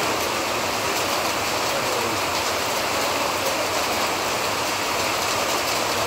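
Monsoon rain falling steadily: an even, unbroken hiss.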